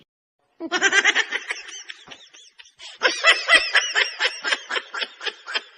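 High-pitched laughter in a fast run of short bursts, starting about half a second in and growing fuller and louder about three seconds in.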